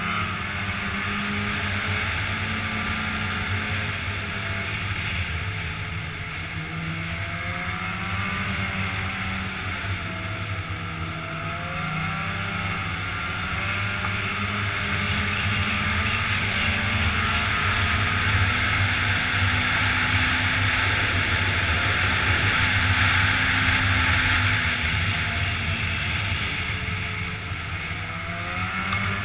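Polaris snowmobile engine running as the sled travels along a trail, its pitch rising and falling with the throttle, with wind rushing past; it gets louder through the middle stretch.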